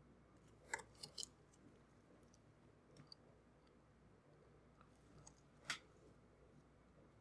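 Near silence broken by a few small, sharp clicks from handling small parts at the workbench: three quick ones about a second in, a faint one near the middle, and a louder single click near the end.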